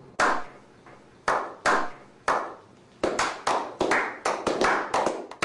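Hand claps with a ringing tail after each one: four spaced claps, then quicker claps at about three a second from a little past halfway.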